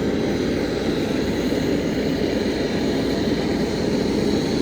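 A steady, unbroken machine rumble, like a running motor or engine.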